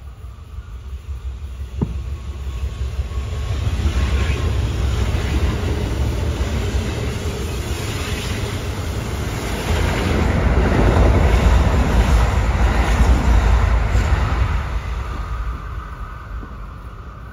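Kintetsu Osaka Line train passing along the station platform, wheels and motors running loud. It builds over the first few seconds, is loudest a little past the middle, and fades away near the end.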